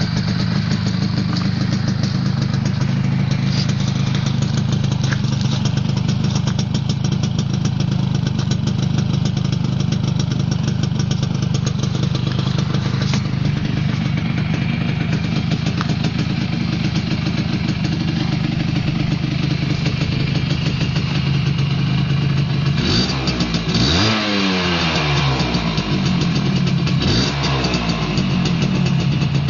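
1979 Suzuki GP100's single-cylinder two-stroke engine, freshly rebuilt, idling steadily, then revved twice near the end, the revs rising and falling back to idle.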